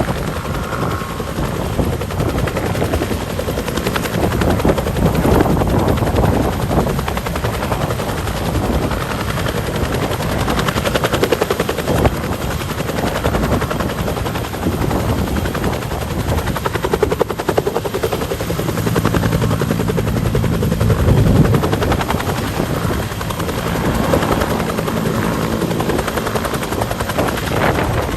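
Helicopter flying close by, loud and steady, its rotor blades beating rapidly over the engine.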